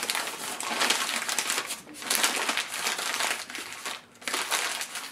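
A sheet of newspaper being crumpled and balled up by hand: continuous crinkling and crackling of paper, with short breaks about two and four seconds in.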